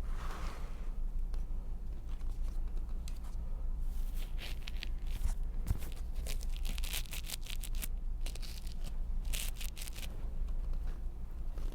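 Crinkling and rustling in several clusters, over a steady low hum, with one short knock about halfway through.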